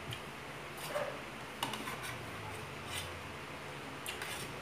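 Eating sounds at a table: about five short, sharp clicks and crunches, from a fork tapping and scraping on a plate and from crisp chewing of raw cucumber.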